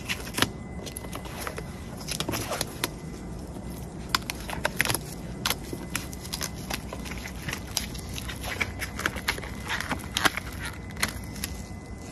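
Masking tape being peeled off freshly painted car bodywork around a taillight, with irregular crackles and sharp ticks as the tape lifts and bunches up in the hand.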